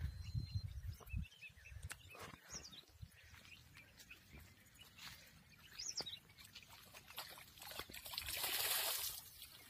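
A hooked fish splashing and thrashing at the water's surface in the shallows as it is reeled to the bank, loudest about eight to nine seconds in. Birds chirp now and then, and wind buffets the microphone in the first second or so.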